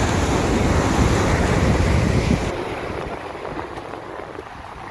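Ocean surf washing on a beach with wind buffeting the microphone; the heavy rumble drops away suddenly about halfway through, leaving a quieter rush of surf.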